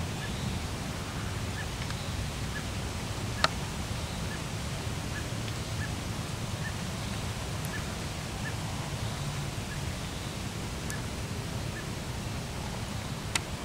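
Quiet outdoor woodland ambience: a steady low rumble, with a faint short chirp repeated about once a second and two sharp ticks, the louder one about three seconds in and another near the end.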